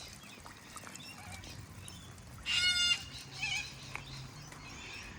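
An animal's call: one loud, high, harsh call lasting about half a second, starting about two and a half seconds in, followed shortly by a fainter, shorter one.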